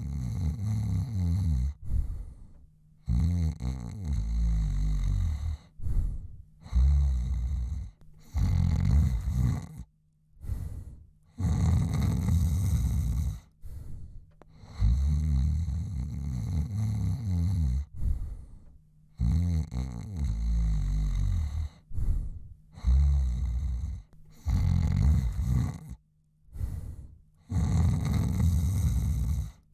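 A man snoring in his sleep: a snore lasting one to three seconds every few seconds, with short quiet gaps between breaths.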